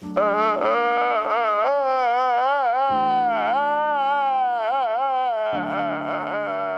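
A single high voice holds one long, wavering wail for about five seconds over sustained music chords, which change twice. It then breaks off into shorter, choppier sounds near the end.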